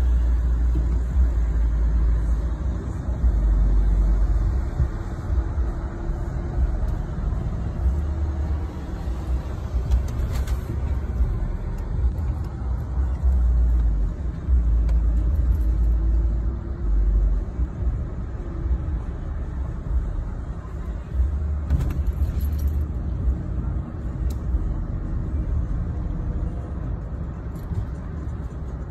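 Road and engine noise heard from inside a moving car: a heavy low rumble that swells and dips, with a faint engine note rising and falling several times.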